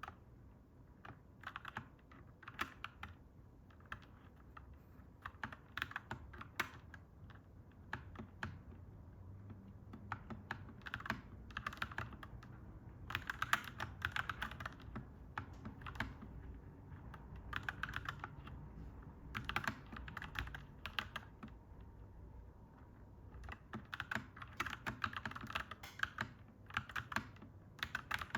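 Fast typing on a clacky mechanical keyboard: runs of sharp keystroke clacks broken by short pauses. A low background rumble runs underneath and swells through the middle.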